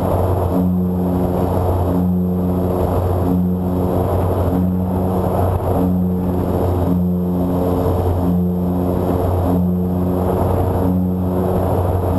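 Twin electric motors and 8x6 propellers of a TwinStar II RC plane droning in flight, heard from on board with wind rush. The two props beat against each other in a slow, regular throb roughly every second and a quarter.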